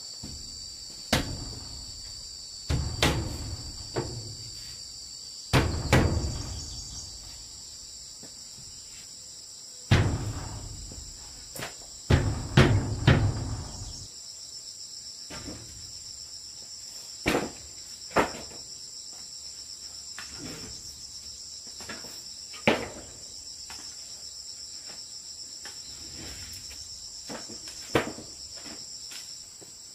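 Loose wooden planks knocking and clattering against each other and the plank floor as they are moved and set down: about a dozen irregular thuds, some with a hollow low ring, the heaviest cluster in the middle. A steady high-pitched insect buzz runs underneath.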